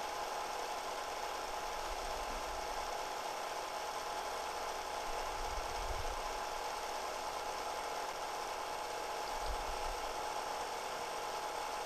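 8 mm film projector running: a steady mechanical whir with a constant hum.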